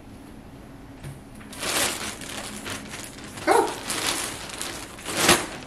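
Plastic mailer bag crinkling and rustling in several bursts as hands rummage inside it, the loudest a sharp crinkle near the end, with a brief pitched sound about halfway through.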